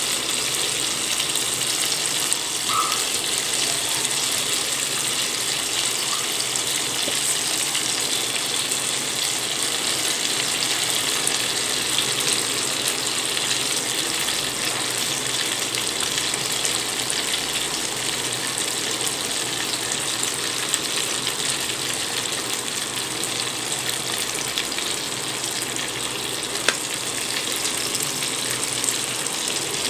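Idli-batter fritters deep-frying in a kadai of hot oil: a steady sizzle.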